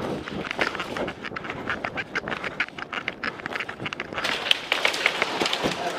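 Rapid, irregular clicks and taps during indoor airsoft play, followed about four seconds in by a stretch of rustling, scuffing movement noise.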